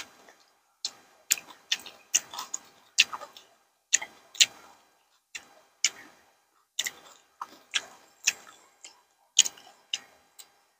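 Close-up chewing of crunchy green papaya salad and raw vegetables: irregular crisp crunches and wet mouth clicks, about one or two a second.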